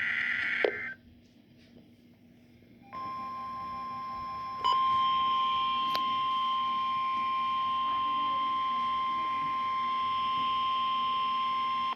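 NOAA Weather Radio test signal: the tail of a SAME digital header burst, a harsh data screech, stops under a second in; after about two seconds of near quiet, the 1050 Hz Warning Alarm Tone comes on as one long steady tone, steps up in loudness about a second and a half later, and cuts off near the end.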